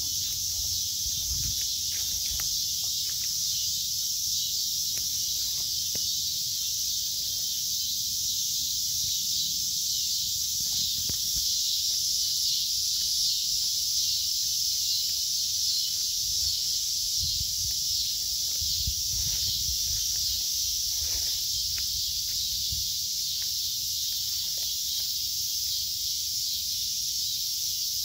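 Steady, high-pitched chorus of insects, with soft footsteps and rustling through the undergrowth beneath it.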